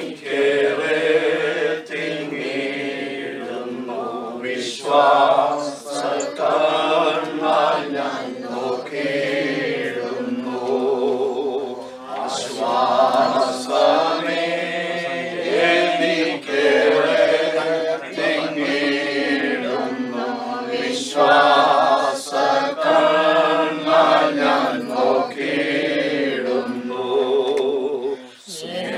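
A group of voices singing a hymn together in held, wavering notes, with short breaks between lines.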